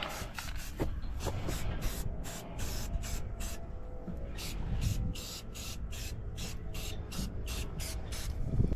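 Aerosol spray-paint can sprayed in many short, quick bursts, about two or three a second, as a pipe is painted.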